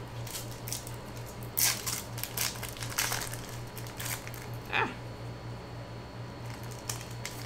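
Foil wrapper of a Panini football trading-card pack crinkling and tearing as it is ripped open by hand, in a run of sharp crackles that are loudest about two and three seconds in.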